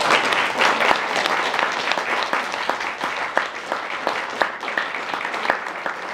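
Audience applauding: many hands clapping together, dense at first and thinning out, with single claps standing out toward the end.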